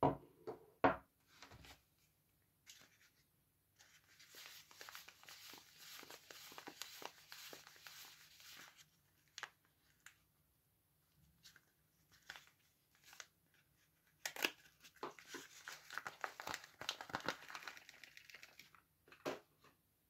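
A Palmolive soap bar's paper wrapper being crinkled and torn open by hand, in two long spells of rustling, with a couple of sharp knocks at the start.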